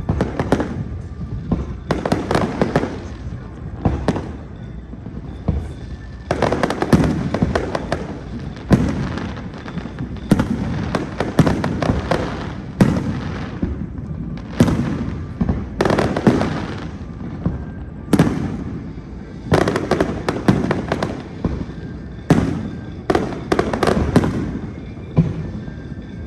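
Aerial fireworks bursting: loud bangs every second or two, often several in quick succession, each with a short echoing tail.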